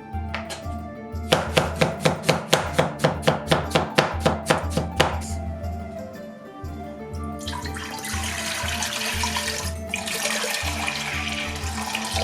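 A knife chopping fast and evenly on a cutting board, about four to five strokes a second for roughly four seconds. After a short pause, a tap runs water steadily into a sink. Background music plays throughout.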